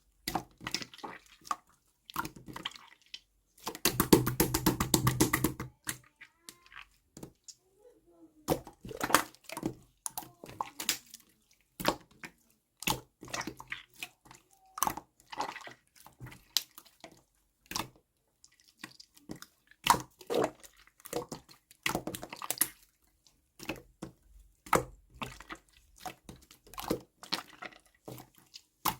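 Handling sounds of making grapefruit ade: scattered taps and clicks of utensils and containers, with drips of liquid. A dense run of rapid rattling strokes about four seconds in is the loudest part.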